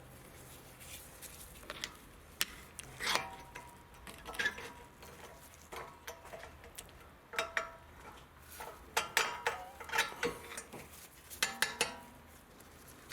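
Metal clinks, taps and scrapes in scattered clusters, some ringing briefly, as a brake pad spring clip is worked into place on a front disc brake caliper.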